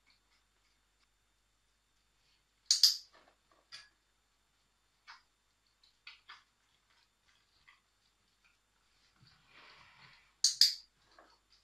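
Dog-training clicker pressed twice, about eight seconds apart, each a sharp double click marking the husky puppy's calm behaviour around a vacuum cleaner that is switched off. Faint small ticks come in between, and a brief rustle just before the second click.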